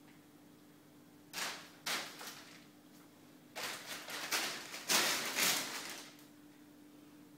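Plastic bag crinkling and rustling as a cat attacks it, in two bouts: a short one about a second in and a longer, louder one from about halfway through.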